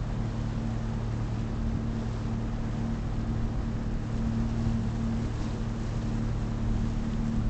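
Motorboat engine running steadily under way, a constant low hum over an even hiss of wind and water.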